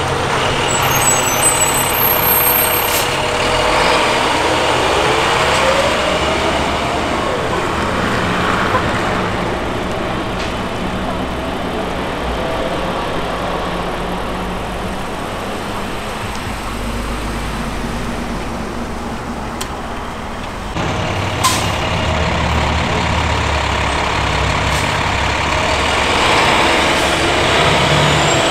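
Diesel engines of heavy fire trucks driving past one after another: CAL FIRE crew buses rumble by and pull away, and near the end a helitender truck approaches. A few short gliding tones come in the first seconds.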